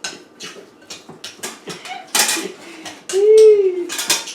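Light metal clinks and rattles as the Can Cooker and its loose grate are handled, with two louder clattering bursts. Near the end a short pitched call that rises and falls stands out as the loudest sound.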